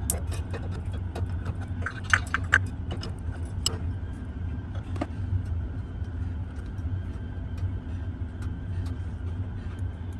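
Combination wrench clinking against the metal gas-tube fittings of a furnace burner as they are tightened: scattered light metallic clicks, a cluster about two seconds in, over a steady low hum.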